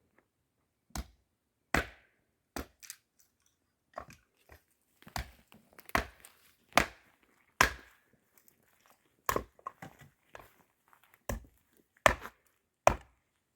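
Splitting kindling: a series of sharp wood-chopping strikes, irregularly spaced at about one a second.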